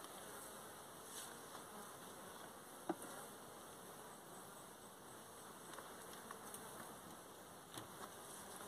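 Faint, steady buzzing of Africanized honey bees around an opened hive, from a colony the beekeeper calls defensive. A single light click about three seconds in.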